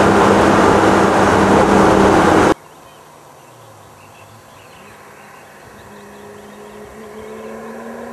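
Loud, steady engine and road noise inside a turbocharged BMW E30 driving at constant speed, cutting off abruptly about two and a half seconds in. Then a distant car engine accelerates, rising steadily in pitch and growing louder.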